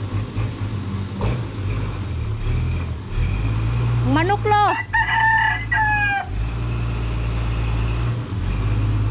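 A rooster crows once about four seconds in, a rising call held for about two seconds. Under it the dump truck's engine runs steadily with a low drone.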